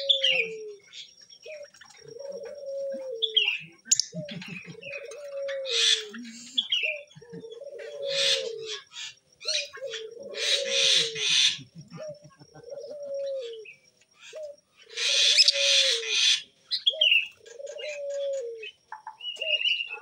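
Lovebirds chirping with short falling notes and letting out harsh screechy bursts, the loudest about three quarters of the way through. Under them a dove coos steadily: one low arched note repeated about every one and a half seconds.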